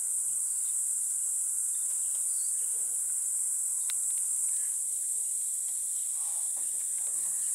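A steady, high-pitched insect chorus from the surrounding dry bush, an unbroken shrill drone with no change in level.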